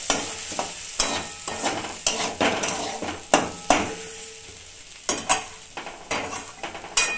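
Flat spatula scraping and stirring semolina and vegetables around a kadai, in irregular strokes of one or two a second.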